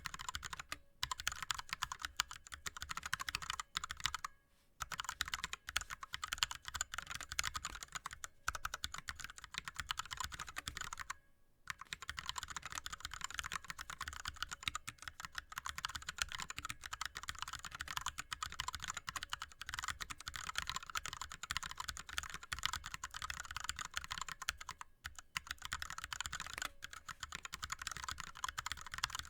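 Fast, continuous typing on an ErgoDox split mechanical keyboard with Cherry MX Red linear switches and blank DSA keycaps: a dense stream of key clacks, broken by a few short pauses.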